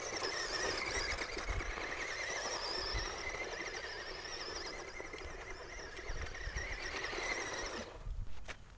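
Tamiya Sand Rover electric RC buggy driving over dirt: a high motor-and-gear whine over the crunch of the tyres throwing up dirt. It cuts off abruptly near the end.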